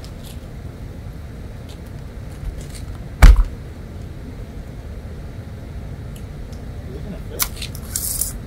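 Steady low rumble with one loud thump about three seconds in, then a few light knocks and a short hiss near the end.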